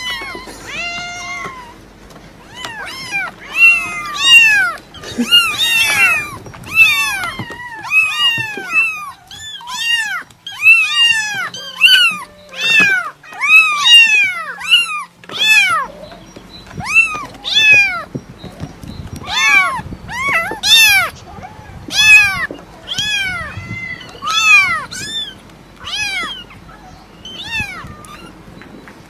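Cat meowing over and over: a rapid string of short, high-pitched meows, each rising and then falling in pitch, some overlapping one another.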